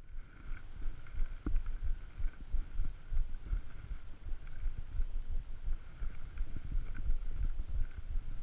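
Irregular dull low thumps and rumble, several a second, from footsteps and a camera microphone jostled while walking uphill over rough ground.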